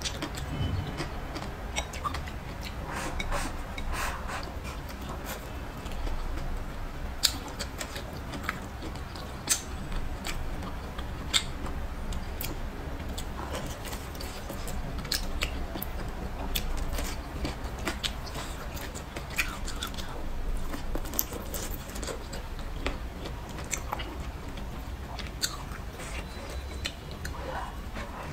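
Close-miked chewing and biting of a chopstick-fed stir-fry of pork slices and potato, with wet mouth noises and scattered sharp clicks at irregular intervals, over a low steady hum.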